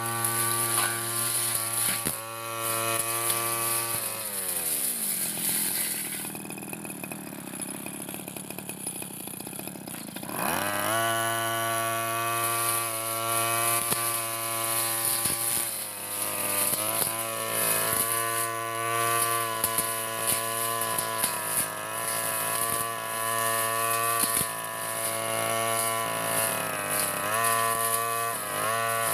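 Petrol backpack brush cutter running at full throttle, dropping to idle about four seconds in, then revving back up to full speed about six seconds later and holding there with small dips in speed.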